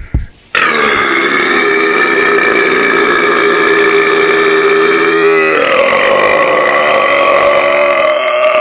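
A man's very long, loud burp, held for roughly nine seconds without a break, with its pitch stepping up about halfway through.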